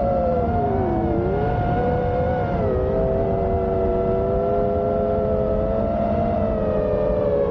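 Brushless motors of a 5-inch FPV quadcopter whining in flight: several close pitches that dip and rise with the throttle, the lowest sagging about a second in and again near three seconds, over a low rushing noise.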